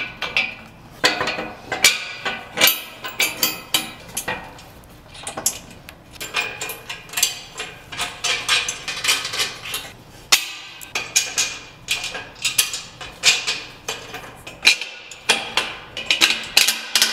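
Metal hardware of a motorcycle carrier being fitted by hand: bolts, washers, nuts and brackets clinking and knocking against the metal frame in an irregular run of sharp clinks, several a second at the busiest moments.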